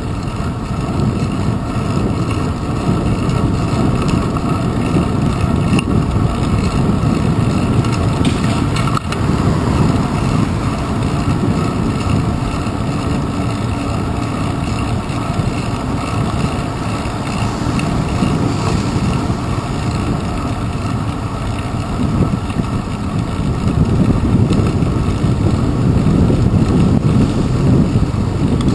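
Steady low rumble of wind and road vibration on the microphone of a handlebar-mounted GoPro Hero 2 on a moving bicycle, a little louder near the end.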